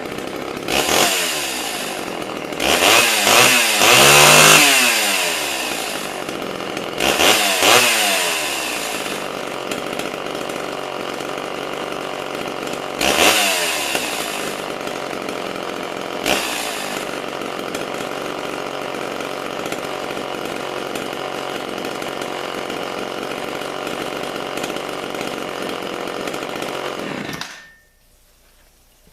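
Homelite two-stroke chainsaw running hot, idling with about five quick revs of the throttle, the longest a few seconds in, then idling steadily until it is switched off and cuts out suddenly near the end. The carburettor jets have been set back to the factory setting, about a quarter turn, and the idle turned down a bit, and it runs well.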